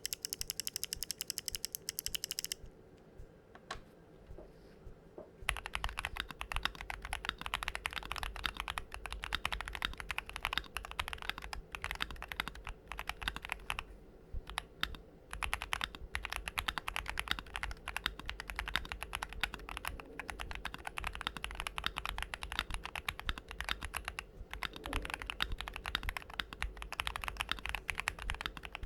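Typing on a Keychron Q1 mechanical keyboard with lubed and filmed JWK Black v2 linear switches on an FR4 plate, with no foam in the case. A fast, even run of clicks comes first, then a pause with a few single clicks, then steady fast typing from about five seconds in.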